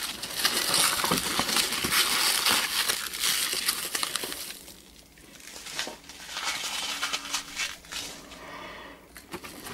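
Hands rummaging through foam packing peanuts and bubble wrap in a cardboard box: dense rustling and crinkling with small clicks. It drops off briefly about five seconds in, then resumes more softly.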